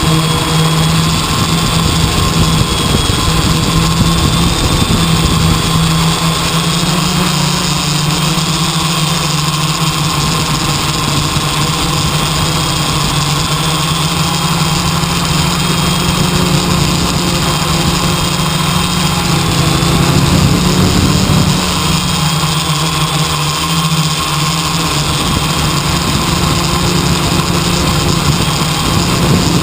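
An engine running steadily: a continuous low hum with steady overtones, its pitch rising slightly about seven seconds in.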